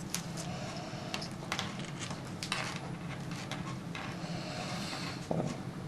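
Faint scattered clicks and rustles of hands twisting two stripped wire ends together for a solder splice, over a steady low hum.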